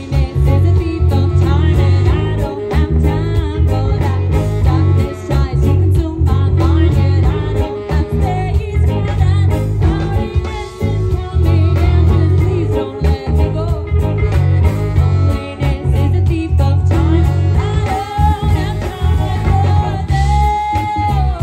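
Live band playing: guitar over a strong bass line, with singing.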